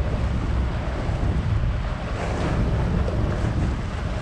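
Wind buffeting the microphone, with a sailboat's engine running underneath as a steady low rumble.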